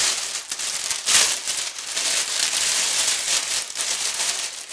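Plastic oven cooking bag crinkling and rustling as it is handled, with a louder rustle about a second in.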